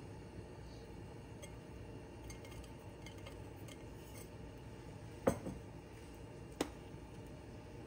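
Small glass bowl handled over a stainless steel soup pot: a few light ticks, then two sharp clinks a little over a second apart, the first the loudest.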